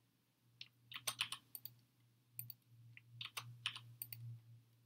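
Computer keyboard keystrokes: scattered clicks in small irregular bursts as shortcut keys are pressed, over a faint steady low hum.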